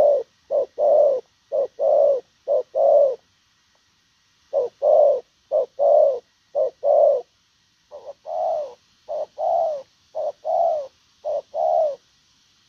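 Spotted dove cooing: repeated two-part phrases, a short coo followed by a longer coo that falls slightly in pitch, about one phrase a second. The phrases come in two runs, with a pause of about a second and a half roughly a third of the way in.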